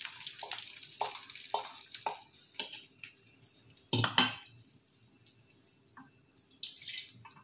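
Thick mashed toor dal poured from a steel vessel into a clay pot of hot tempering: the oil's sizzle dies away and the dal falls in with a run of wet plops, about two a second. A single knock comes about four seconds in.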